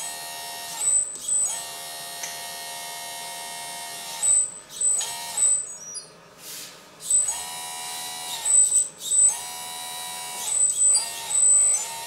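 Electric hydraulic pump of a 1/14-scale RC bulldozer whining in short runs, each rising as it starts and falling away as it stops, while the dozer blade is tilted from side to side. The pump runs only while a control stick is held. A few brief louder noises fall between the runs.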